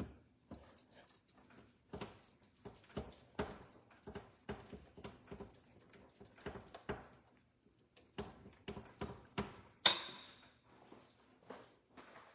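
Wire whisk stirring thick custard in a stainless steel bowl, the wires clicking and tapping irregularly against the metal. Near the end, one sharp, ringing clink of the whisk against the bowl.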